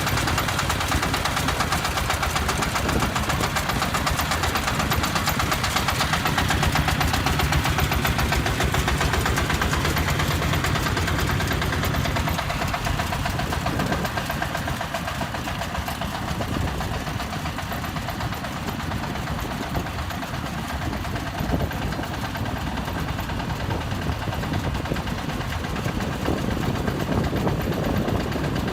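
Engine of a self-loading concrete mixer running steadily, a little quieter through the middle and picking up again near the end.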